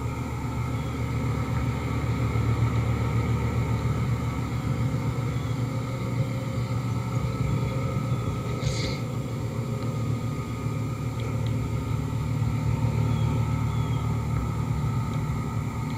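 Carrier central air-conditioner condensing units running with a steady compressor and fan hum, heard as a recording played back and re-recorded. A brief high-pitched chirp about nine seconds in.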